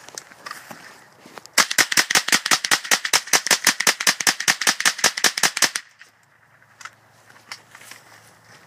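GSG 522 .22 rimfire carbine fired in a fast, even string of about thirty sharp shots, some eight a second, over about four seconds. Then faint footsteps and rustling in the brush as the shooter moves on.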